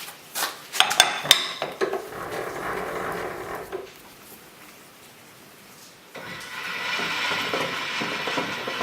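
Metal clinks, then stretches of rattling from a Bridgeport milling machine as its table is cranked up by hand.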